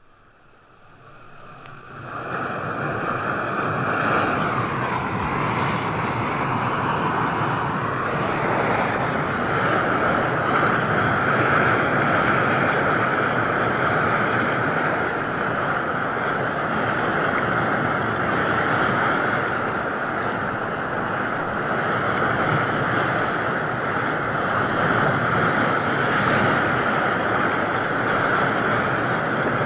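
Steady drone of an aircraft engine, fading in over the first couple of seconds and then holding level, with a strong steady whine over the rushing noise.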